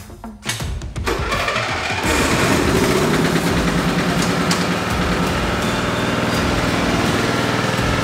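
Riding lawn mower engine being started: it turns over and catches about two seconds in, then runs steadily.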